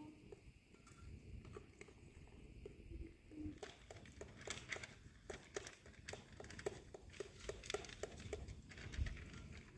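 Faint crinkling and rustling of a sheet of paper being handled, a quick run of irregular crackles starting about three and a half seconds in and going on until near the end.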